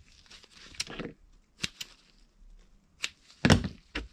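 Scissors snipping the corners off a foam sponge: a handful of short, sharp snips spread through, the loudest about three and a half seconds in.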